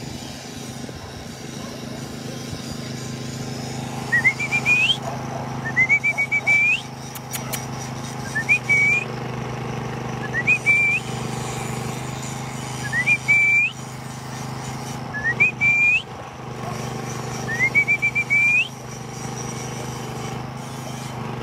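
A man whistling repeatedly to call the shelter dogs: seven short whistles, each a quick rising glide that levels off into a brief warble, about two seconds apart, over a steady low hum.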